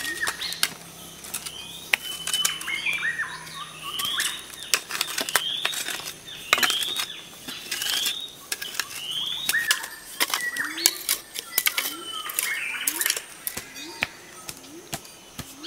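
Metal hoe blade chopping and scraping into stony soil, a string of sharp strikes and scrapes. A bird calls over and over in short rising chirps, mostly in the first half.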